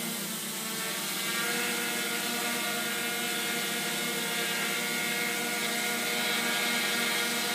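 Tarot T960 hexacopter's electric motors and carbon-fibre propellers running steadily, a dense hum of several close tones that comes up a little about a second in.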